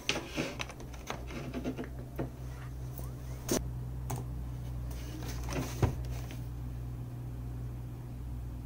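Scattered clicks of keys being pressed on an HP ProBook 450 G1 laptop keyboard, about ten over the first six seconds, then stopping. A steady low hum runs underneath.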